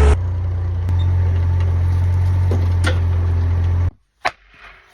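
A sawmill's engine running steadily with a low hum, then cutting off abruptly about four seconds in, followed by a single sharp click.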